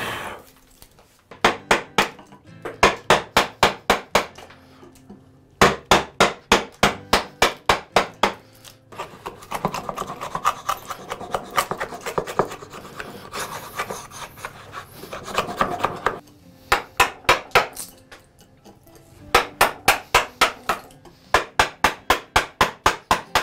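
Wooden mallet tapping a bench chisel in quick runs of light blows, about five a second, chopping wood out of a recess in a workbench top. In the middle, several seconds of continuous scraping as a hand router plane is pushed back and forth, paring the floor of the recess.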